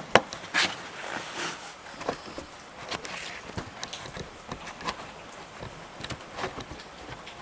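Scattered clicks, taps and light knocks of tools and metal parts being handled while a scooter engine's top end is taken apart, with two sharp knocks at the start.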